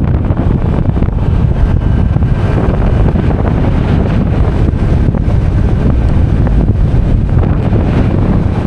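Strong wind buffeting the microphone on a Yamaha New Nmax scooter cruising at about 55–60 km/h: a loud, steady low rumble.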